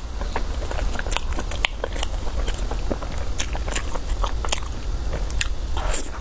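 Close-miked eating of cake and desserts: biting and chewing with many sharp, irregular crackly clicks.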